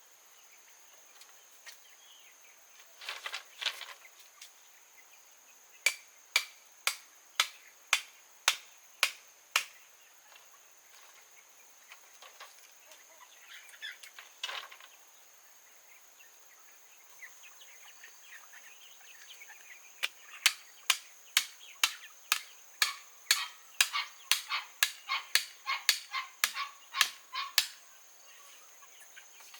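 Hammering: two runs of sharp blows at about two to three a second, over a steady high insect drone.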